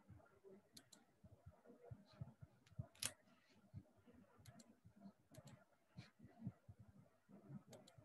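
Near silence: faint room tone with scattered light clicks and ticks, the sharpest about three seconds in.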